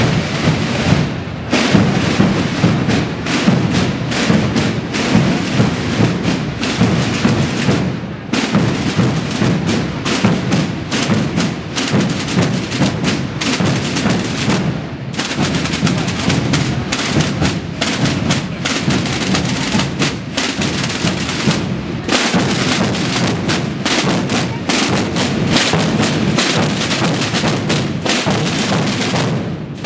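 Massed Spanish procession drums, rope-tensioned tambores and bombos (bass drums), beating together in dense continuous strokes. The playing dips briefly about every seven seconds.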